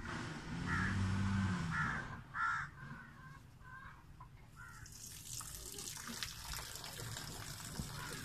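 Goat kids bleating, several loud calls over a deeper, longer call, for the first two and a half seconds. About five seconds in, a steady hiss starts and runs on.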